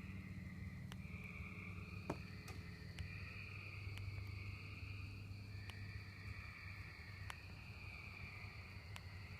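Chorus of tree frogs calling, their high calls repeating about every second and a half and overlapping. A steady high-pitched tone joins about two seconds in, with a few faint clicks and a low hum underneath.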